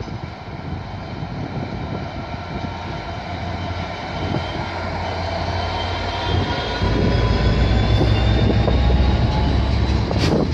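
Class 66 diesel locomotive, with its two-stroke V12 engine, passing at close range while hauling hopper wagons. The engine sound and its whine build and are loudest for a few seconds as the locomotive goes by, giving way to the wagons' wheels on the rails, with one sharp knock near the end.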